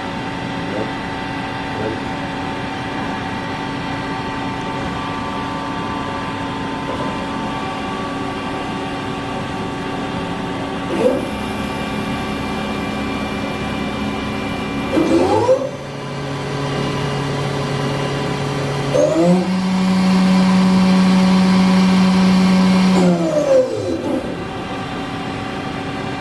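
Haas VF-6SS 5-axis CNC machining center running with a steady mechanical hum. About halfway through, the spindle starts up with a hiss and a rising whine, steps up in speed twice with rising glides, and is loudest in its last few seconds at speed. Near the end it winds down with a falling whine.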